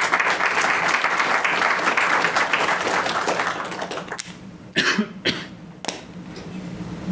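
Audience applauding, the clapping fading out about four seconds in, followed by a cough and a couple of short sounds.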